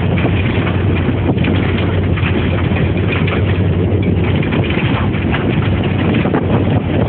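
A vehicle running under way: a steady low engine hum under loud wind buffeting on the microphone, with a stream of short knocks and rattles.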